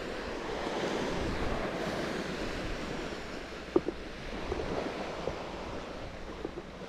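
Small waves breaking and washing up on a sandy beach, a steady wash of surf that swells and then slowly eases. One sharp click about four seconds in.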